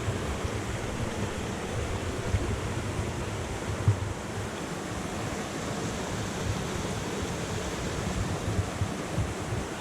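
Steady rushing of falling water, with a low buffeting rumble from wind on the microphone and a couple of brief thumps in the first half.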